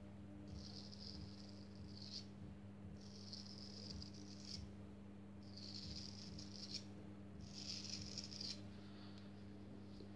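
Freshly honed straight razor scraping through stubble on a lathered neck: about five separate rasping strokes, each a second or so long, with a weaker one near the end. A faint steady low hum runs underneath.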